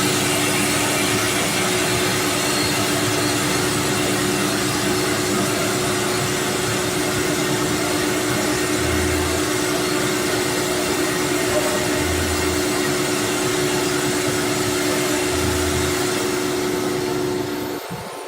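Spindles of a four-spindle CNC router running at speed: a steady airy whine holding two low tones, with a soft low thud about every three seconds, three times in the middle. The sound falls away sharply near the end.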